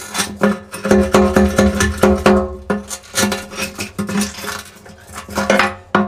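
Strummed acoustic guitar background music with a regular beat, over a few sharp knocks of a steel chisel against the glass bottom of an aquarium.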